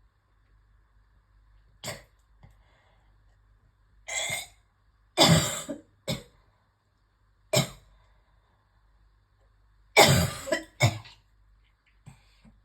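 A person's coughing fit: about eight separate coughs and throat clearings, the loudest about five and ten seconds in, as a lot of phlegm is being coughed up.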